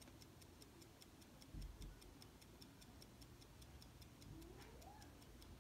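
A vintage Omega pocket watch ticking steadily and faintly, about five ticks a second, while it is held in the hands, with light handling noise underneath.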